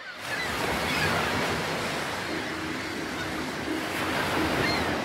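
Steady rush of sea waves, fading in at the start, with a few faint short high chirps.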